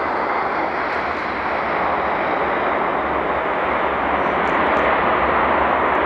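Airbus A380's four Engine Alliance GP7200 turbofans running as the airliner rolls along the runway: a steady rushing jet noise that slowly grows louder.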